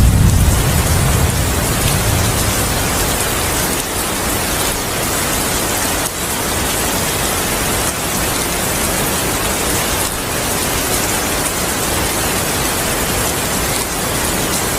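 Heavy rain falling steadily, a dense even hiss, with a low thunder rumble dying away in the first couple of seconds.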